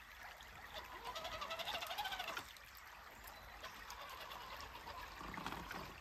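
Creek water trickling, with an RC crawler truck's motor whining from about one to two and a half seconds in, its pitch wavering up and down as the throttle changes.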